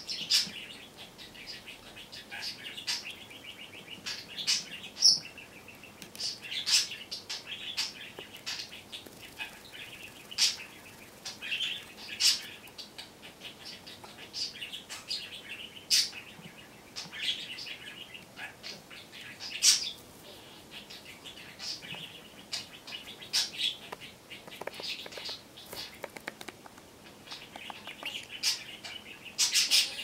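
Budgerigar chattering close to the microphone: a soft, continuous warble with many short, sharp chirps and clicks scattered through it.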